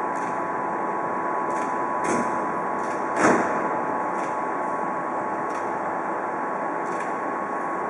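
A DR Class 243 electric locomotive standing at the platform, its running equipment giving a steady hum with a steady high tone. A small knock comes about two seconds in and a louder, sharp knock a second later.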